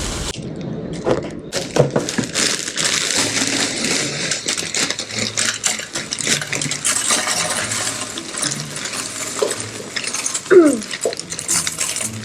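Dry granola or cereal being poured and shaken into a plastic storage container: a continuous dense rattle of many small pieces hitting plastic, with a brief squeak about ten seconds in.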